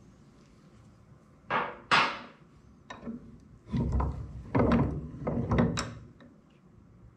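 Bench vise being loosened and a brass-topped air-tank valve lifted out of its jaws: two sharp metal clanks about a second and a half in, then a run of knocks and rattles for a couple of seconds.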